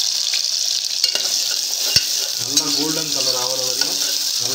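Chopped onions sizzling in hot oil in a pressure cooker, stirred with a steel ladle that scrapes and clicks against the pot a couple of times. A low voice is heard in the background from about halfway through.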